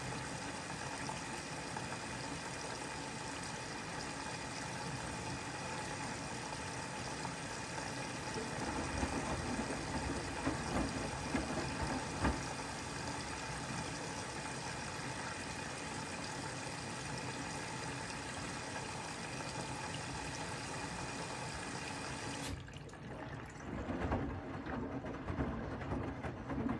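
Bosch Serie 4 WAK20260TR washing machine taking in water: a steady rush of water through the inlet valve, with low surges now and then from the tumbling load. The rush of water cuts off suddenly about 22 seconds in as the fill stops, leaving the drum turning the wet laundry.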